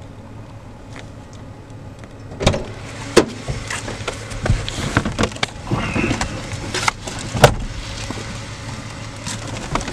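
Car idling with a steady low hum, overlaid from about two and a half seconds in by a series of knocks and clunks as people climb into the car; the loudest knock comes about seven and a half seconds in.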